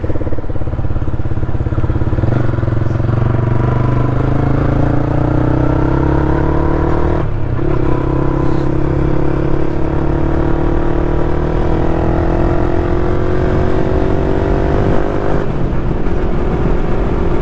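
Yamaha R15 V3's single-cylinder engine running through an aftermarket full-system Akrapovic exhaust while riding, its note climbing slowly under steady throttle. The note breaks briefly about seven seconds in, climbs again, then levels off near the end.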